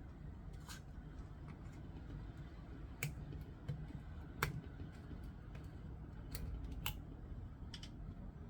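Scattered light clicks and taps, about half a dozen, over a low steady hum, the sharpest about three and four and a half seconds in.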